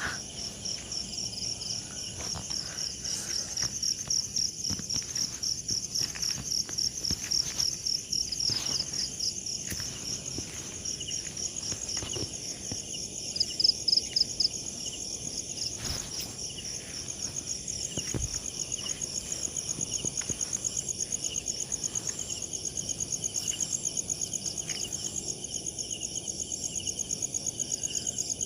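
Night insects, crickets, chirping in a steady chorus of rapid, high-pitched pulsed trills. A nearer, louder trill stands out briefly about halfway through.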